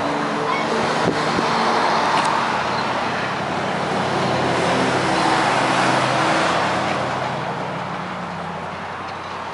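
Road traffic: passing vehicles, a rushing noise that swells twice and then fades away.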